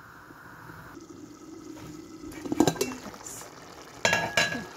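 Aluminium pot lid knocking and clinking against the rim as it is handled and lifted off a simmering pot of kabsa. There are sharp metallic knocks about two and a half seconds in, and a louder ringing clank about four seconds in.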